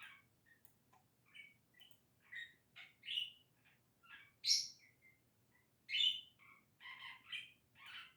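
Budgerigar chattering and warbling contentedly: a steady run of short chirps, squeaks and warbled notes, the loudest about four and a half and six seconds in.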